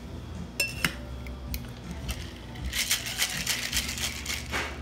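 Boston shaker (mixing glass seated in a metal tin) with ice: a few sharp clinks about a second in as glass and tin are fitted together, then ice rattling fast inside as it is shaken hard for about two seconds.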